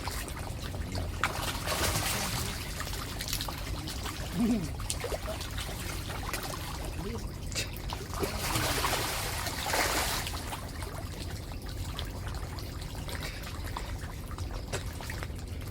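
Water trickling and pouring, swelling louder briefly about two seconds in and again around eight to ten seconds in.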